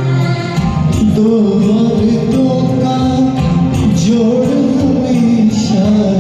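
Music: a karaoke backing track with a bending lead melody line over steady accompaniment.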